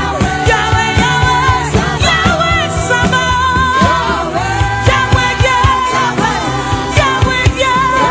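Gospel worship music: a solo voice singing long, bending held notes over keyboard and drums with a steady beat.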